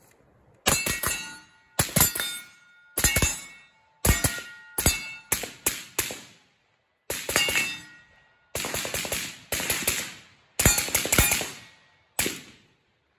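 Suppressed 7.62x39 AK, a Polish underfolder with a 16-inch barrel and a Dead Air Wolverine PBS-1 suppressor, firing semi-auto in quick strings of one to four shots, about two dozen in all. Steel targets ring after the hits.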